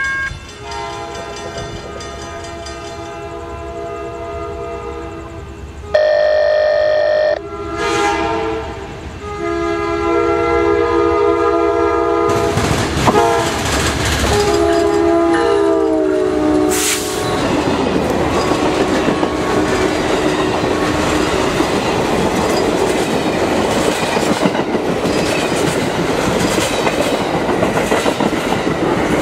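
Amtrak P42DC diesel locomotive sounding its air horn in long chords as it approaches at speed, the horn's pitch dropping as it passes. The passenger cars then rush by with loud wheel noise and a clickety-clack over the rail joints.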